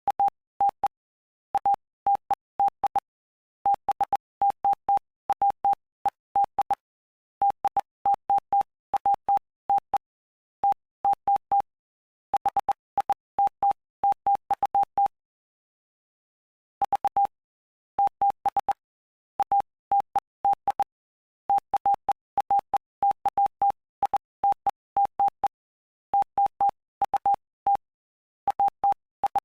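Morse code sent as a keyed audio tone of one steady pitch: short dots and longer dashes in letter and word groups, spelling out the text of Mark chapter 5. A pause of about two seconds comes about halfway through.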